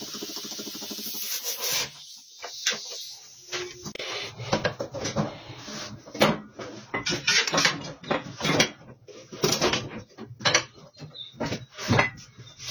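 A steady hiss from a compressed-air tool stops about two seconds in. Then comes a string of irregular knocks, thumps and rubbing of rubber and metal as a car tire is worked off a tire spreader and handled.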